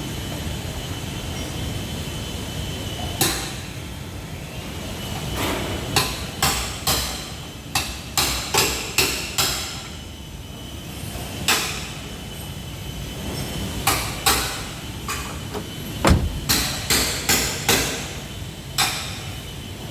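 Hammer striking car body sheet metal in irregular runs of sharp blows, each with a brief metallic ring, while a dented quarter panel or tailgate is beaten back into shape.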